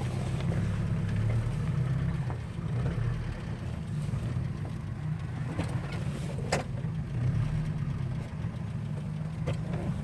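An off-road 4x4's engine running steadily at low speed on a rough track, with a few short knocks; the sharpest comes about six and a half seconds in.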